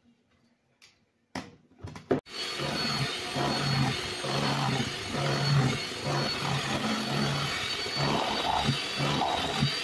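Electric hand mixer switched on after a few knocks about two seconds in, then running steadily with a wavering hum as its beaters churn thick cake batter in a metal bowl, mixing in freshly added flour.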